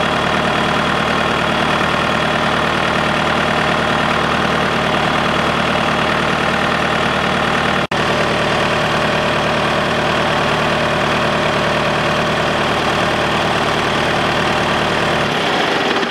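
John Deere 2030A tractor engine idling steadily, started up after the gearbox shift-lever seal was replaced.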